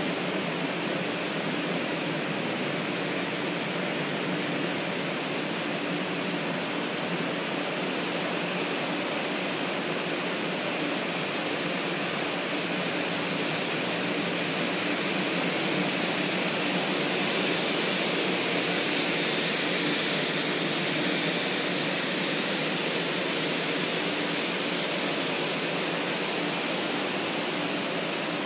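Steady rushing hiss with a low hum from the equipment and air-conditioning blowers of a stationary 500-series Shinkansen, swelling slightly a little past the middle.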